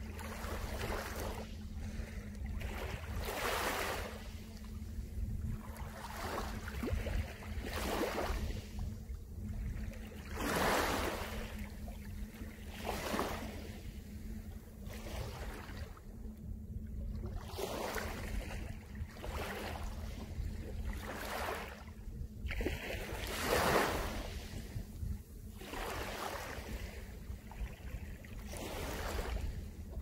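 Small waves from a calm sea lapping and washing onto a pebble beach, one soft wash every two seconds or so, over a steady low rumble.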